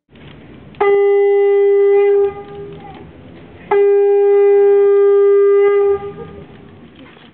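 A horn blown twice: two long, steady notes at one pitch, each starting suddenly, the first about a second and a half long and the second about two seconds.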